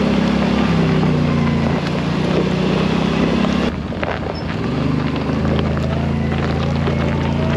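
Side-by-side UTV engine running as it drives down a gravel trail, with wind on the microphone. The engine note steps lower in the first two seconds, fades briefly about halfway through, then rises again and holds steady.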